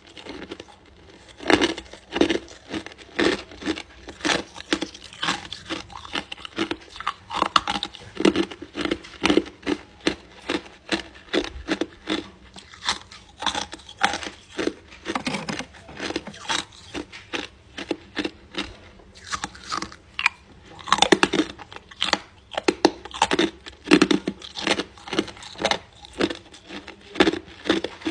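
Hard ice being crunched and chewed close to the microphone: a steady run of sharp crunches, about two a second.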